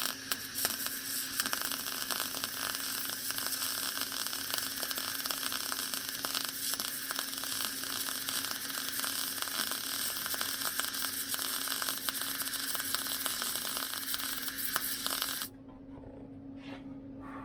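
MIG welder arc crackling and sizzling steadily as a bead is run on the VW Beetle's sheet-metal body with 0.023 wire and shielding gas. It stops abruptly about 15 seconds in, leaving a steady low hum.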